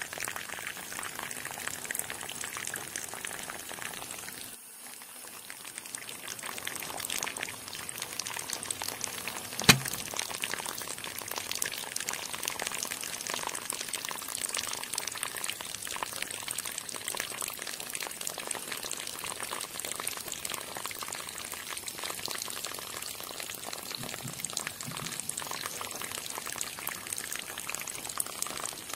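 A thin stream of water from a mini pump's clear plastic tube pouring and splashing steadily into a shallow pool. A single sharp click about ten seconds in.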